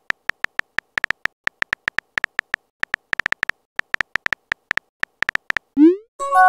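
Chat-app keyboard sound effects: short high beeping ticks, several a second in uneven runs, one for each typed letter. Near the end a quick rising swoop as the message is sent, then a chime of several steady tones.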